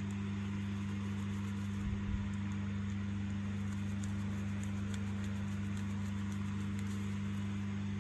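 A steady low hum with a few overtones, with a short low knock about two seconds in.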